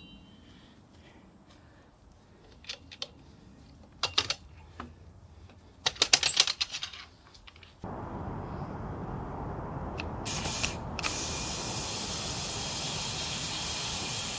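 A few light clicks and knocks, then a steady hiss of rushing air starts suddenly about eight seconds in and runs on, turning brighter and hissier about three seconds later.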